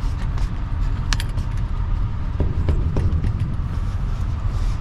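Semi truck engine idling with a steady low rumble, with a few light metallic clinks about a second in and again between two and three seconds in.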